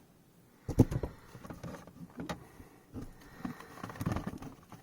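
Hard plastic graded-card slabs clicking and knocking against each other and the table as they are handled, a string of irregular light taps with one sharper knock about a second in.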